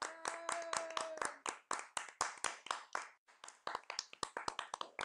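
Hand clapping by a few people, quick and irregular, about five claps a second with a short pause in the middle. A held pitched note sounds over the claps for about the first second.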